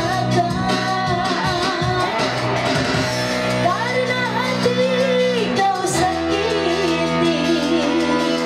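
A woman singing into a microphone over amplified live band accompaniment, with a long, wavering held note in the middle.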